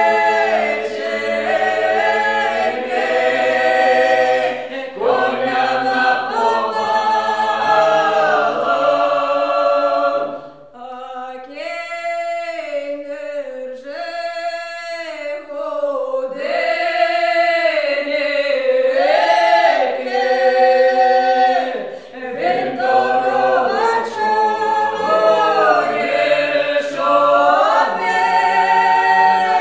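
A small mixed ensemble of women's and men's voices singing a traditional Ukrainian folk song a cappella in several parts, with a low held part underneath. About ten seconds in the group drops out and a single voice sings alone for several seconds before the ensemble comes back in.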